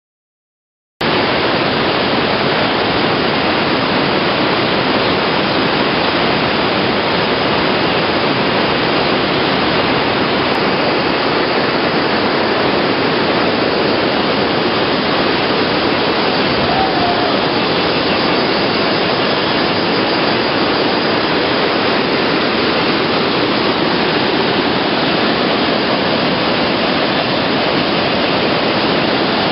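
Waterfall water rushing, a loud, steady, unchanging rush of noise that starts abruptly about a second in.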